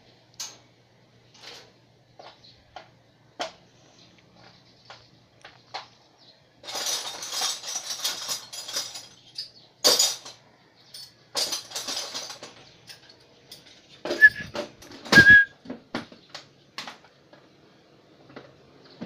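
Syringe feeding of a small parrot in a wire cage: scattered light clicks and clinks against the cage and feeder, two spells of hissy rattling, a few sharp knocks, and two short high chirps near the end.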